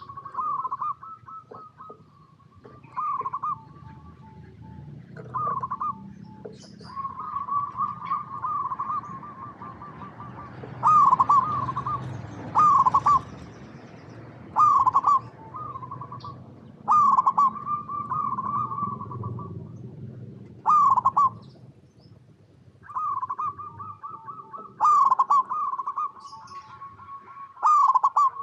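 Zebra dove (perkutut) singing: phrase after phrase of rapid, soft, trilled cooing notes, with a louder burst of coos every few seconds.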